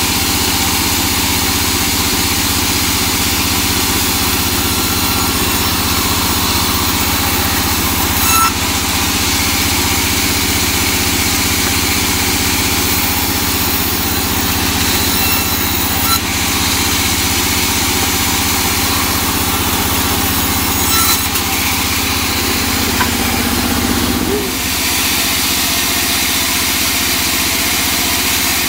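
Large vertical band saw running steadily and ripping a teak plank, a constant motor hum under the hiss of the blade in the wood, with a few short knocks of the board. Near the end the low hum shifts as the load changes.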